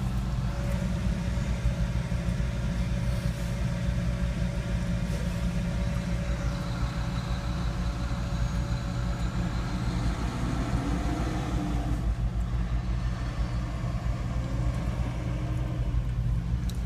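Car running, heard from inside its cabin: a steady low rumble of engine and road noise.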